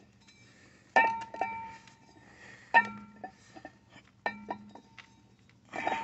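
Ratchet and 5/8 socket working a bolt on a motorcycle's rear wheel hub. Three sharp metal clinks ring on briefly, about one, three and four and a half seconds in, with lighter clicks between them and a short rustle near the end.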